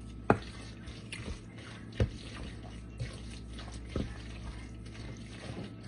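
A spoon knocking lightly against a bowl a few times, roughly two seconds apart, over a steady low hum.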